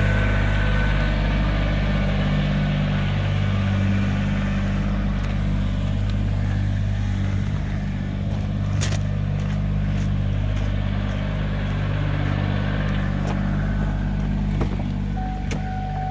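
Backhoe engine running steadily at an even speed, with a few faint clicks over it.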